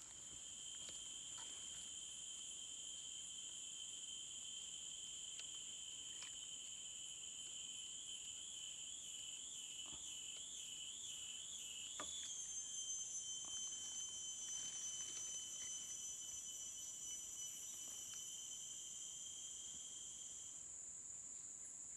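Insects singing: a steady high-pitched buzz runs throughout, and a second, lower whistling tone warbles about eight seconds in, shifts pitch around twelve seconds and stops shortly before the end.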